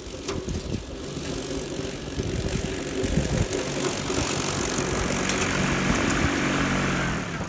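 Electric ride-on mower conversion driving under its electric drive motors: a steady motor hum with chassis rattle and hiss, growing louder until about six seconds in and then dropping away near the end.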